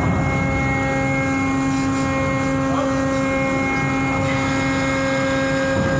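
Ship's mooring winch running to haul in a mooring line: a steady machinery hum with a constant whine of several fixed tones, unchanging in pitch or loudness.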